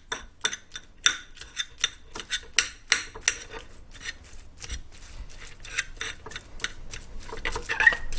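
Two metal forks clicking and scraping against a ceramic plate as they pull apart cooked chicken breast, in quick repeated strokes of about two or three a second.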